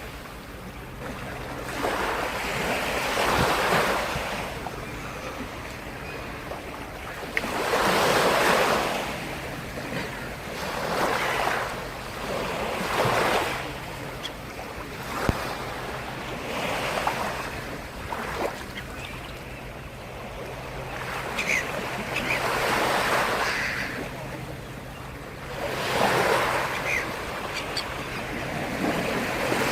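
Black Sea surf: waves breaking and washing up the shore, swelling and falling away every few seconds. A faint steady low hum runs underneath.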